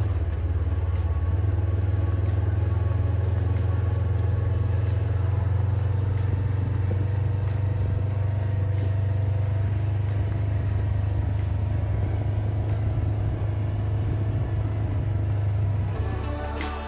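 Side-by-side UTV engine running steadily as it drives slowly along a gravel trail, a constant low drone.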